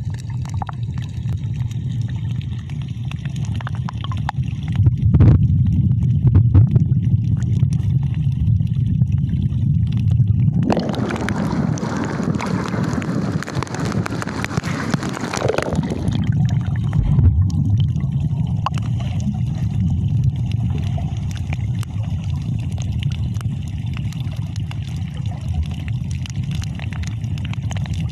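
Water sounds picked up by a phone held underwater while snorkeling: a muffled, steady low rumble and gurgle. About eleven seconds in, the phone breaks the surface for roughly five seconds and brighter splashing water is heard, before it goes back under and the sound turns muffled again.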